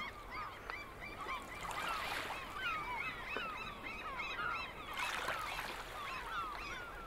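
A flock of birds calling, a dense chorus of many short, overlapping calls with no break. Brief soft swells of hiss come about two seconds and five seconds in.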